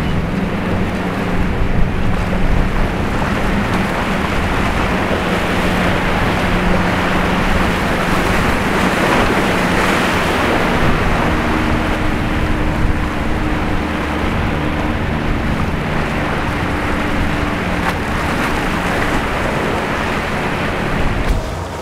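Surf and rushing water with wind buffeting the microphone, over the steady hum of boat engines; a lower engine hum gives way to a higher one about halfway through.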